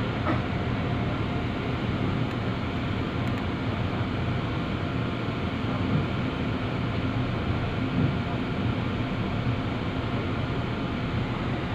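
Small passenger ferry's motor running steadily under way: a constant low drone over a noisy hiss of water and air.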